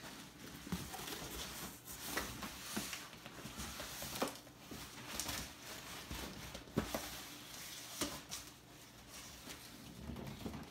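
Cardboard box being unpacked: cardboard rustling and scraping as an inner carton is slid out, with several sharp knocks, and a plastic-wrapped figure is lifted out near the end.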